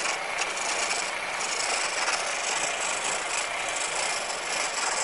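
A gouge roughing down a spinning blank of green wood on a treadle lathe: a steady scraping hiss of the cut.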